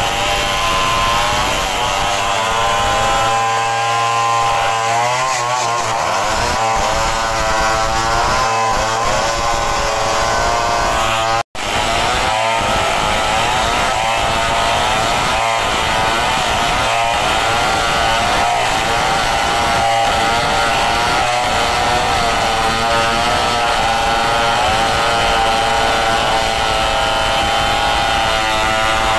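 Two Stihl chainsaws running at high revs together, ripping a timber beam lengthwise into boards, their engine pitches wavering against each other under load. The sound cuts out for an instant a little over ten seconds in.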